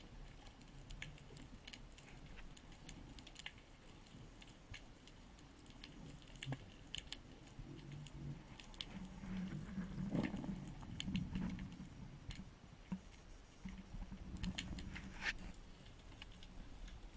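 Faint underwater ambience: scattered crackling clicks, with a low muffled rumble swelling about ten seconds in and again near fifteen seconds.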